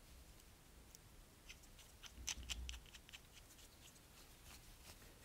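Faint clicks and plastic handling noise as a Revival Cycles three-button handlebar switch housing is assembled by hand, with a quick cluster of clicks about two to three seconds in.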